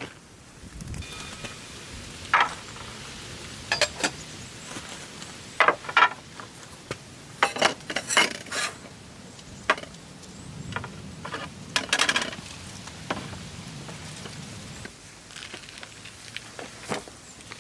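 Scattered clinks and knocks of hard objects being handled and set down, a dozen or so at irregular intervals over a steady low background.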